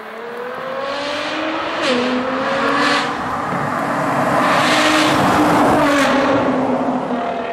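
Nissan GT-R's twin-turbo V6 through a full titanium Armytrix exhaust, accelerating hard in an underpass, its pitch climbing and dropping sharply at gear changes about two and three seconds in. It grows louder as the car comes past, loudest about five to six seconds in, then fades.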